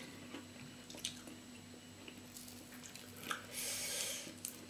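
Faint chewing and mouth sounds of people eating, with a few light clicks of cutlery on a bowl and a short breathy hiss about three and a half seconds in, over a faint steady hum.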